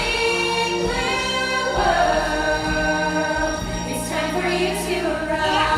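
Choir of voices singing long held notes over backing music, moving to a new chord every second or so.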